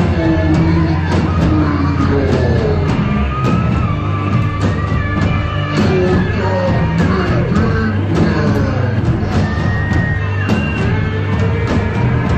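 Live band playing rock music: drum kit hits keep a steady beat under gliding melodic lines and a heavy bass.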